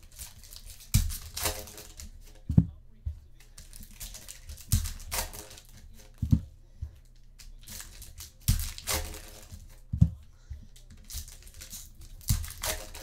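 Foil trading-card pack wrappers crinkling and tearing as packs are ripped open, in short sharp bursts every second or two.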